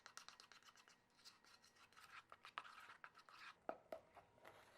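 A utensil stirring batter in a mixing bowl: quiet, repeated scraping and tapping strokes as flour, sugar, vanilla and milk are mixed into a thin, pancake-like batter.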